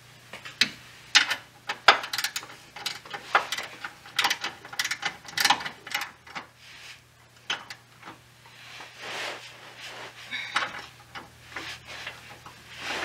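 Hand ratchet with a 15 mm socket clicking in short, irregular runs as a bolt is tightened. Later come sparser clinks and knocks of metal parts being handled.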